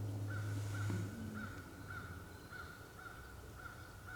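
An animal calling repeatedly in the background, short arched notes about two a second, over a low hum that stops about a second in.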